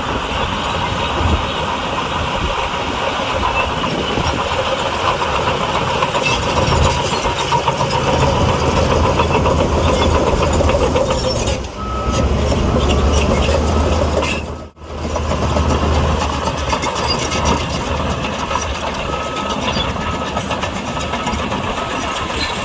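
Heavy diesel construction machinery running under load, its engine droning steadily, with a reversing alarm beeping at intervals in the second half.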